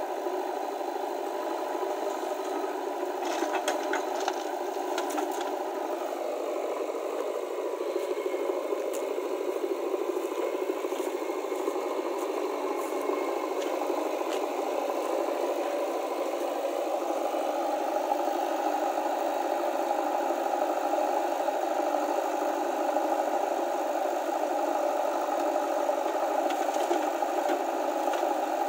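A vehicle engine running steadily, with light rattling and clicks over it. Its note sinks a few seconds in and comes back up past the middle.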